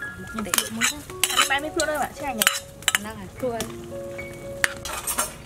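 Metal ladle stirring soup in an aluminium pot, clinking and scraping against the pot several times, over background music.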